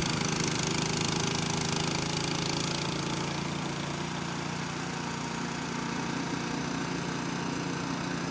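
An engine running steadily at an even speed: a constant low hum over a steady hiss.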